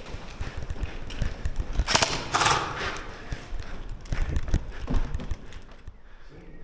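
Footsteps and dull thumps of a person moving over the ground with gear knocking. About two seconds in there is a louder rustling scrape lasting under a second.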